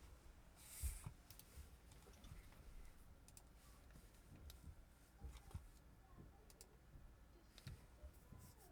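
Near silence: room tone with faint, scattered clicks and ticks and a brief soft hiss about a second in.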